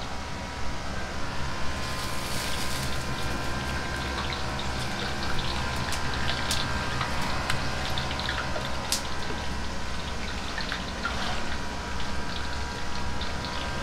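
Hot oil in a wok crackling and spitting with scattered sharp pops, over a steady low rumble.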